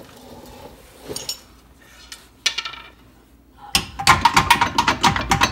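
Loose metallic clanking and rattling, a quick run of sharp knocks starting about two-thirds of the way in, as a 2011 Nissan Murano's lower control arm is worked free of its frame mount by hand. Before that there are only a few scattered clicks.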